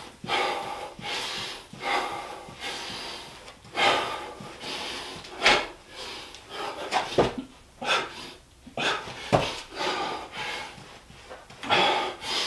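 A man breathing hard and fast during burpees, panting about once a second, with a few dull thuds as his hands and feet hit the floor.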